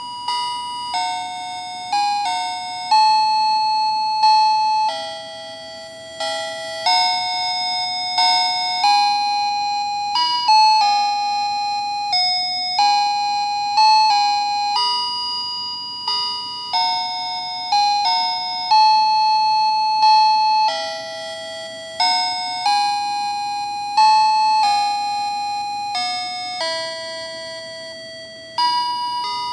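Fisher-Price light-up crib toy playing an electronic lullaby in bell-like chime tones, one note at a time at a slow even pace, each note struck and fading.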